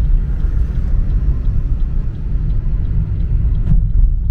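Car on the move: steady low road and engine rumble.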